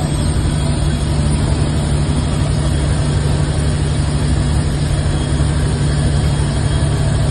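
Heavy diesel truck engine running steadily under way, heard from inside the cab as a constant low drone mixed with road noise.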